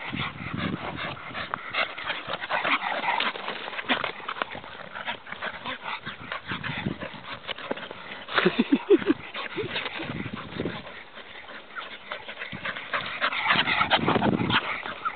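A Staffordshire bull terrier and a bull terrier play-fighting: whimpers and short yips over many light clicks and knocks, with a quick run of high yips about eight and a half seconds in.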